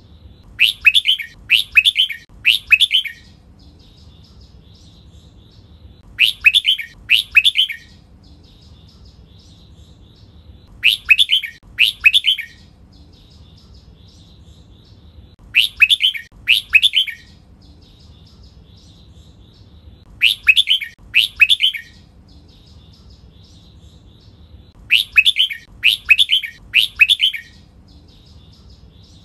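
Red-whiskered bulbul singing its 'double' song: loud phrases of two or three rich notes, repeating about every five seconds, with faint soft chatter between them.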